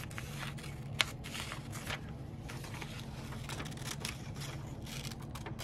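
Quiet handling of paper with faint rustles and scrapes, one sharp click about a second in, over a steady low hum.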